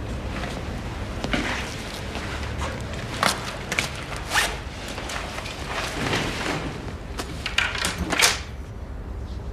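A police ballistic vest being taken off: several short tearing rasps from its hook-and-loop straps being pulled open, with clothing rustling, over a low steady hum.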